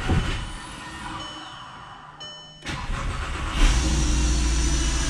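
Volkswagen Rabbit donor car's engine being started: the starter cranks, then the engine catches about three and a half seconds in and settles into a steady run. A brief high tone sounds just before it catches.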